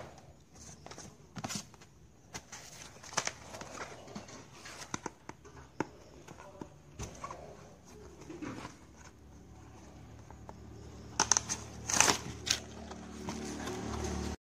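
Cardboard box packaging rustling, creaking and knocking as it is handled and opened by hand, with a cluster of louder crackles near the end.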